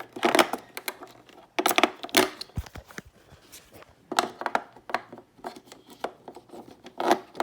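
AA batteries being handled and fitted into a plastic toy's battery compartment: scattered clicks with several short scraping, crinkly rustles.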